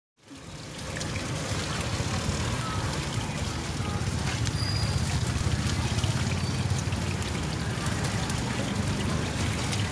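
Steady street background noise: a hiss over a low rumble, rising from silence during the first second.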